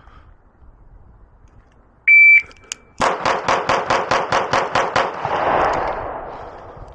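A shot timer gives one short high beep. About a second later a Beretta 9mm pistol fires a rapid string of about ten shots, roughly five a second, and the reports ring out and fade after the last one.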